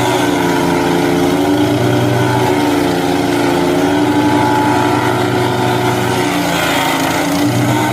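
Wood chipper's engine running, its pitch dipping and recovering several times.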